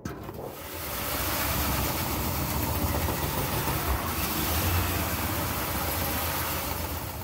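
Cordless power tool cutting a hole through a galvanized steel sheet, running steadily and then stopping near the end.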